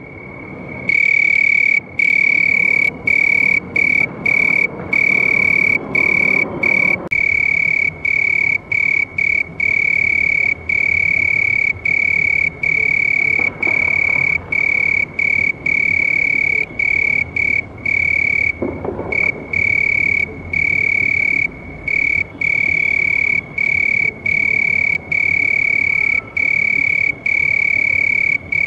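A cricket singing a loud, continuous high-pitched trill. The trill is broken by short pauses about every half second to a second.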